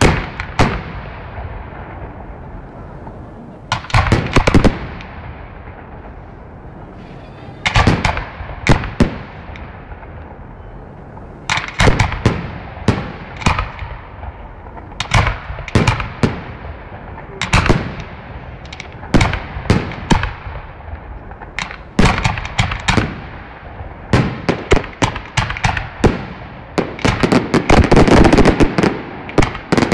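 Aerial fireworks shells bursting in groups of sharp bangs every couple of seconds, building into a dense run of rapid bangs near the end.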